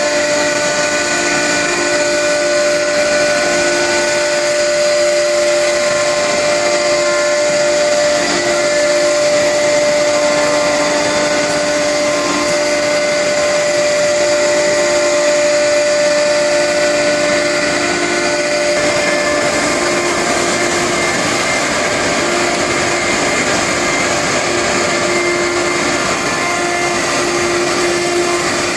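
CNC router running, its spindle giving a steady whine over a loud, even hiss of machine noise. The strongest whine tone drops away about two-thirds of the way through while the rest keeps on.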